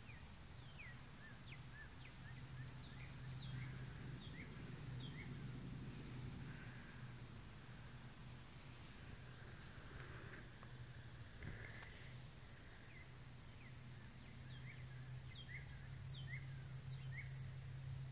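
Pond-side ambience: insects keep up a steady, very high, evenly pulsing trill while birds call in many short, falling chirps, over a low steady hum.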